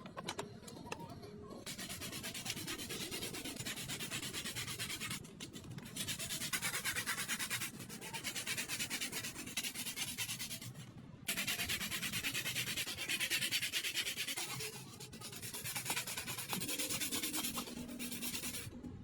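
Sandpaper rubbed by hand over the clutch disc and flywheel friction surfaces to polish them, a dense scratchy hiss in rapid strokes. It comes in about five spells separated by brief pauses.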